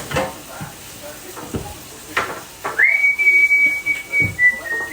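A few knocks, then a single high whistle that swoops up quickly and holds one steady note for about two and a half seconds, stepping slightly lower near the end.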